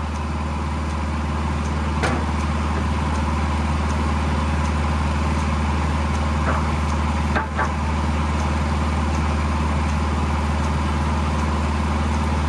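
Farm tractor engine driving a sawmill edger through its PTO shaft and belts, run a little under 540 PTO rpm: a steady low drone. A few sharp clicks or knocks stand out over it.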